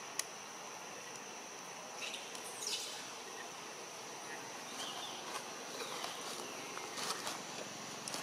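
Steady high-pitched insect drone, with a few short faint chirps and squeaks about two to three seconds in and again around five seconds in.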